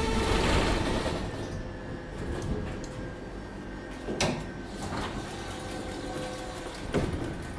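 Tatra T4DC tram drawing to a halt: the whine of its drive and the running noise die away within the first second or two. Then come several sharp clunks of the tram's doors being worked, the loudest about four seconds in and again near the end.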